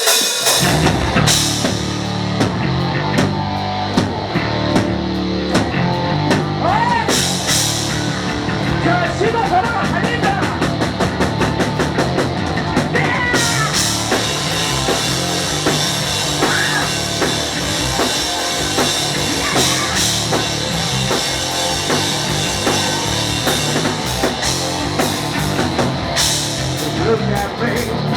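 Rock band playing live at full volume, with drum kit and bass guitar driving a steady beat and a cymbal crash about every six seconds; no singing.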